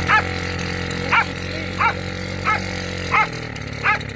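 A dog barking six times, single sharp barks about every 0.7 s, over a 53-year-old British Seagull two-stroke outboard motor running steadily at idle. The motor's note drops a little near the end.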